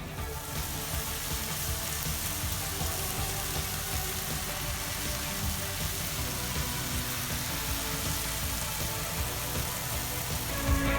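Food sizzling as it stir-fries in a hot pan, a steady hiss that starts suddenly at the outset, with background music underneath.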